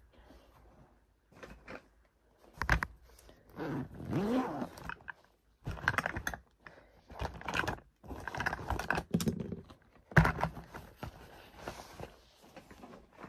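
A light blue zippered fabric bag being handled and worked open: irregular rustling, scraping and zipper noise, with small items clinking and a couple of sharp knocks, the loudest about three seconds in and again near the end.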